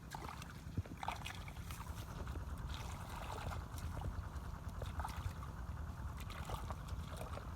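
Shallow muddy water sloshing, with irregular small splashes and clicks as hands grope through it for catfish.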